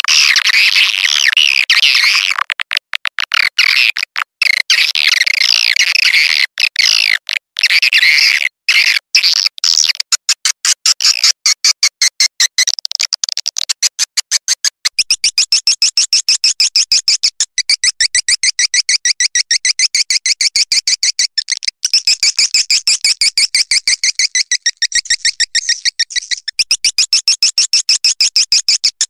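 Recorded swiftlet lure calls: a dense, high twittering chatter for the first couple of seconds, then broken chirps, settling about halfway into a fast, even train of short high chirps that runs on steadily.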